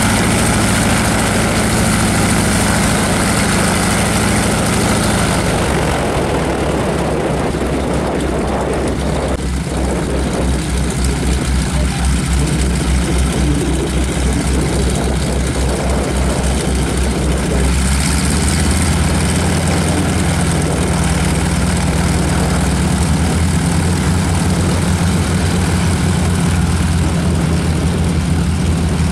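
Boeing Stearman biplane's radial engine idling on the ground with the propeller turning. About six seconds in the note drops into a lumpy, pulsing beat, then settles to a steadier note again in the second half.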